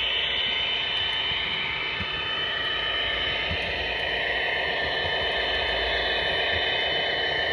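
HO scale MTH SD70ACE model diesel locomotive rolling along the track, its onboard sound system playing a steady diesel engine sound with a thin high whine over it.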